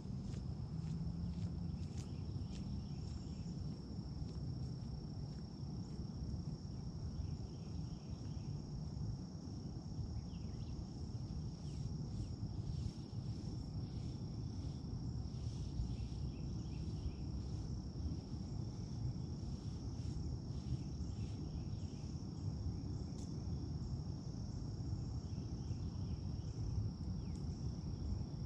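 An insect trilling steadily on one high pitch, over a low rumble of outdoor noise.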